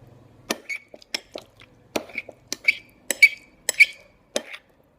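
A utensil clinking against a container while slime is mixed: a quick, irregular run of sharp clinks, each with a brief ring, the loudest about three seconds in.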